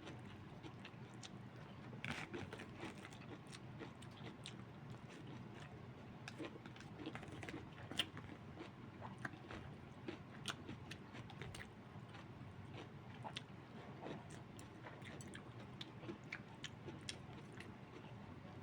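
A person chewing a mouthful of pork, cabbage and rice, faint mouth noises with many small irregular clicks.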